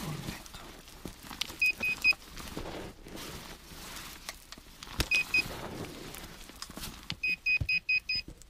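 Handheld metal-detector pinpointer beeping in short, high pips (three, then two, then a quick run of five near the end) as it is pushed into the hole, signalling a metal target in the soil. Loose dirt scraped and flicked out of the hole between the beeps.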